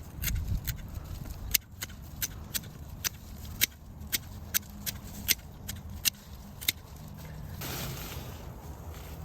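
Garden scissors snipping over and over while trimming amaranth stems: a run of sharp clicks, about two a second, that stops after about seven seconds. A low rumble runs underneath.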